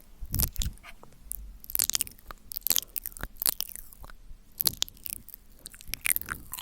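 Close-miked ASMR mouth sounds: an irregular run of wet clicks, smacks and tongue pops.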